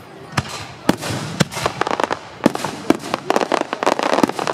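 Fireworks display: aerial shells bursting in a string of sharp bangs, with crackling between them. The bangs come closer together and the crackle thickens in the second half.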